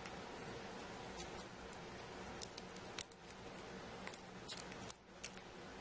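Scattered small clicks and taps from handling the smartphone and its parts, mostly in the second half, over a steady faint hum.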